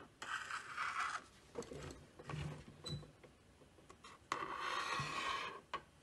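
Marker pen drawing lines on paper on a clipboard: two scratchy strokes, one about a second long near the start and a longer one about four seconds in, with a few soft knocks from the pen and clipboard in between.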